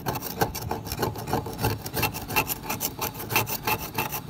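Hacksaw blade scraping the surface of a plastic water tank around a crack in quick repeated strokes, roughening the plastic so that M-seal epoxy putty will bond to it.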